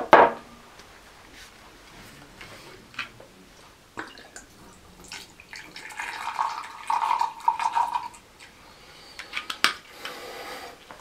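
Vodka poured from a bottle into a glass tumbler: a trickling pour lasting about two seconds, from about six seconds in. A sharp knock of glass on the table comes right at the start, and a few clinks come near the end.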